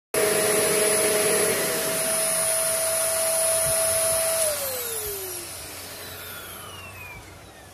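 Kirby upright vacuum cleaner running with a loud, steady high whine. About four and a half seconds in, the motor's pitch starts falling and the sound fades as it winds down. A second, lower motor tone falls away earlier, about a second and a half in.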